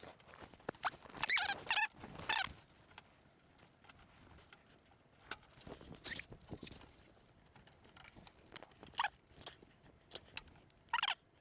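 Handling noise of a tower CPU cooler being fitted: plastic push-pin mounts scraping and clicking as they are pressed into the motherboard's holes, one pin's tip splayed open so it is hard to seat. Short scratchy squeaks come about one to two seconds in, then scattered single clicks and knocks.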